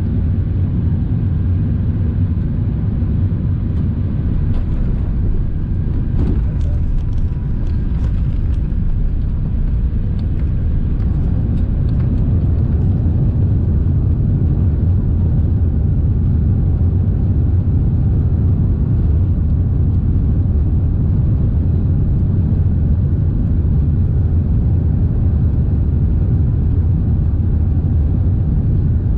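Cabin noise of an Airbus A380 rolling on the ground after landing: a steady low rumble of the engines and wheels, heard from a seat over the wing.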